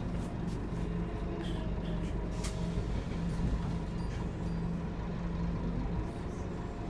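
Scania K230UB Omnilink bus heard inside its passenger saloon: the rear-mounted five-cylinder diesel engine running with a steady low drone, and a few light clicks from the interior fittings.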